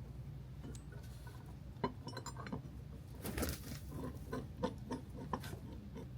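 Steel bolts and hitch hardware clinking against each other as they are handled, a scatter of light metallic clicks.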